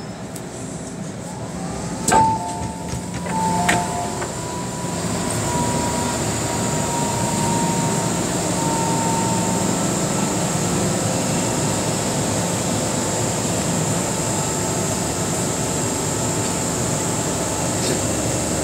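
MTR Tsuen Wan Line electric train braking to a stop at a station platform, heard from inside the car. Two sharp knocks come about two and four seconds in, then a thin whine lasts until about ten seconds in, over a steady rumble that settles as the train halts.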